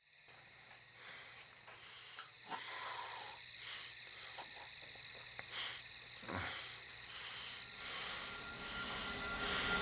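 Crickets chirping steadily in a night-time ambience, a high, pulsing chorus.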